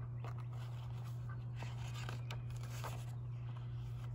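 Soft paper rustling and light handling noises as the pages of a picture book are turned, over a steady low hum.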